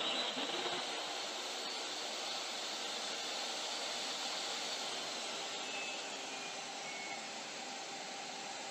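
DeWalt DWE7491 table saw and a small shop vac running together at a steady, even whir, the vacuum switched on automatically by an auto vacuum switch when the saw started. A brief rising whine right at the start as the motors come up to speed.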